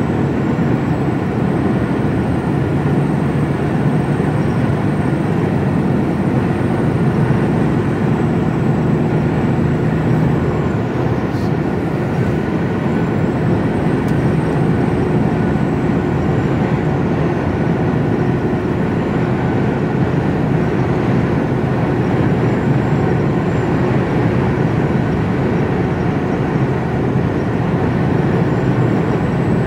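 Steady drone of an HGV truck's diesel engine and road noise, heard inside the cab while driving.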